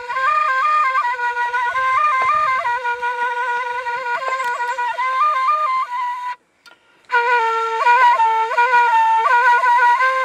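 Solo metal shepherd's flute playing a melody of held notes with quick ornamental flicks between them, breaking off briefly for a breath about six and a half seconds in.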